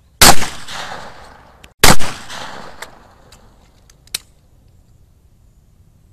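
Two shotgun shots about a second and a half apart, each with a long echoing tail, followed by a few small clicks.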